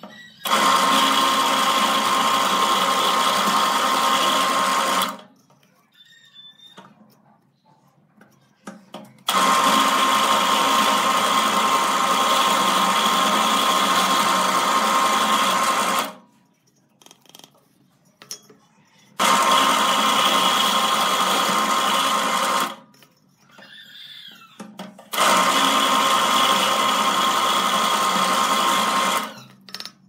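Drill press running and drilling through two stacked wooden strips in four separate stretches of a few seconds each, a steady motor whine with the bit cutting, each stretch starting and stopping abruptly.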